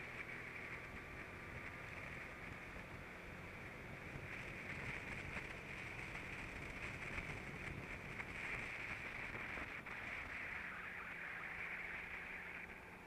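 Go-kart engine running under power at racing speed, heard from a camera mounted on the kart, mixed with rushing air; the sound stays steady with no sharp breaks.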